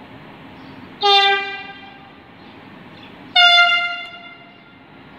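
Train horn sounded twice, about two seconds apart: first a lower-pitched blast, then a higher-pitched one. Each starts sharply and fades away within about a second.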